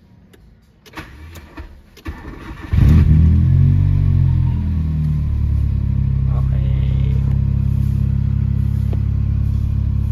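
Car engine being started: a second or two of starter cranking, then it catches suddenly and runs loud, its revs settling slightly a couple of seconds later into a steady idle.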